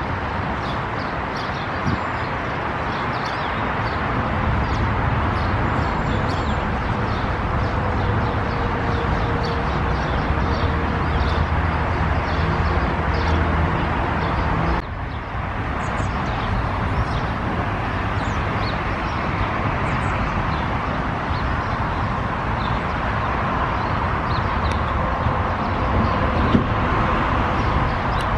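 Outdoor ambience: a steady wash of background noise with birds chirping now and then. The sound dips briefly about halfway through.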